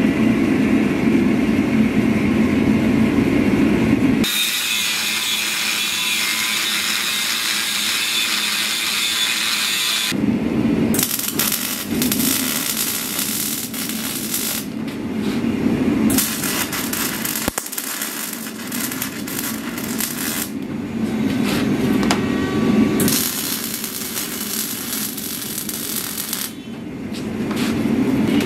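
Power tool working steel in a smithy, in several segments that switch abruptly between a low rushing sound and a high hiss.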